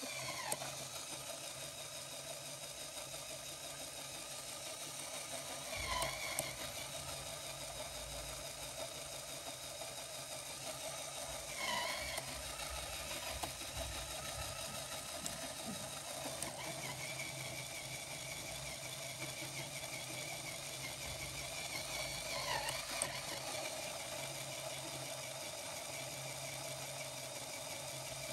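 Small LEGO electric motor driving a LEGO Technic four-speed gearbox, a steady whir of plastic gears. The lever is shifted about five times, every five or six seconds; at each shift the whine briefly dips and swoops in pitch with a click, then settles at a new steady pitch.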